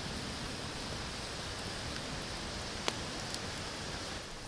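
Wood campfire burning under a wire grill with a steady hiss, and one sharp click about three seconds in.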